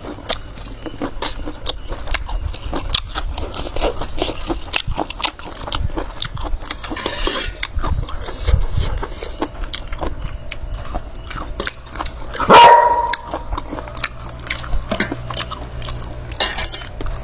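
A dog barking, with one loud bark about three-quarters of the way through. Scattered light clicks and knocks sound throughout.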